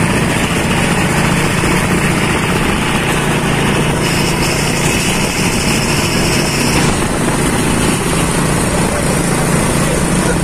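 Engine of a home-built diesel-engined motorcycle running steadily at road speed, mixed with the engines of other motorcycles and road noise.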